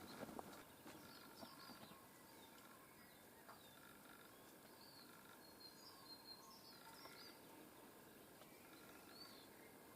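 Faint, scattered short chirps from small songbirds, a few quick high notes every second or so over a quiet outdoor background.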